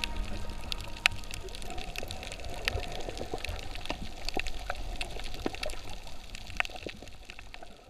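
Underwater reef sound on a snorkeller's camera: a low rush of water with scattered sharp clicks and crackles, slowly fading toward the end.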